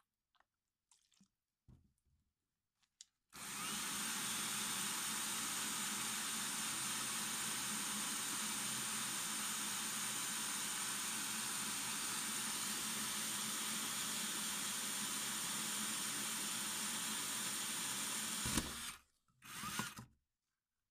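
Power drill spinning a carbide-grit hole saw through a wet glazed tile, a steady grinding drone that starts about three seconds in after a few small clicks and stops near the end, followed by a brief second spin-up. The tile is cut wet with water to cool the carbide and wash the grit away.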